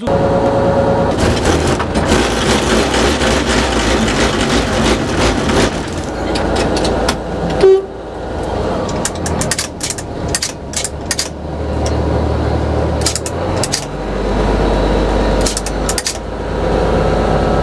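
Old train running, heard from inside its driver's cab: a steady engine drone with metallic rattling and bursts of clicking, and a deeper rumble building up in the second half.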